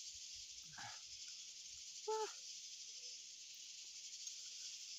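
Steady high-pitched insect chorus. A short voice sound comes about a second in, and a louder one about two seconds in.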